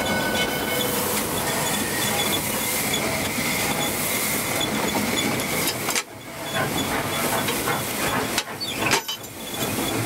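Steam locomotive drifting along the rails without throttle, heard from inside the cab: a steady hiss of steam mixed with rolling noise. The noise drops away briefly twice, about six and nine seconds in.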